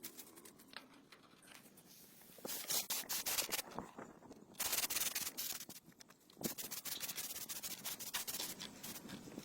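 Rapid rubbing or sanding strokes on a surface, in three bouts of one to three seconds each, the first starting about two and a half seconds in.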